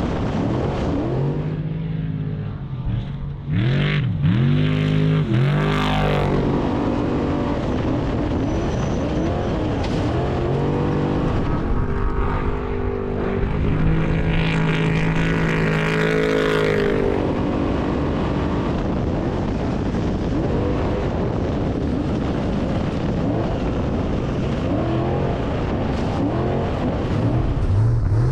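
Off-road race vehicle engine running hard under load, revving up and down as it shifts. A quick series of rises and falls in pitch comes a few seconds in, and a steadier high-rpm run comes about midway.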